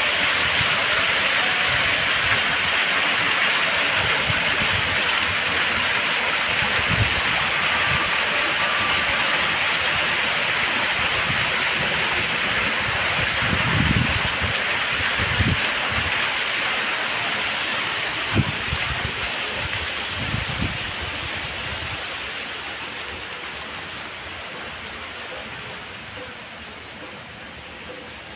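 Artificial waterfall pouring down rockwork into a pool: a steady rush of falling water that fades away over the last several seconds. A few faint low thumps come in the middle.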